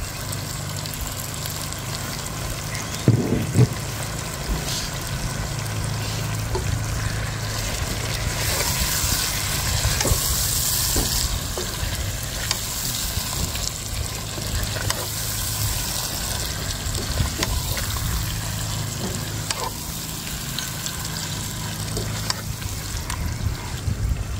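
Raw chicken pieces sizzling and frying in hot oil and masala in a pot while being stirred with a spoon, the sizzle loudest about halfway through. A couple of loud thumps about three seconds in and scattered small clicks of the spoon against the pot. The masala is already fried until its oil has separated, and the chicken is searing in it.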